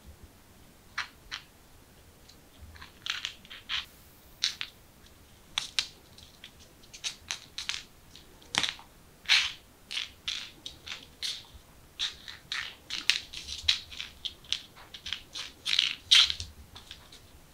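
Irregular light clicks and taps on a laminate floor as kittens pounce on and bat a small piece of food about, sparse at first and coming thick and fast from about three seconds in.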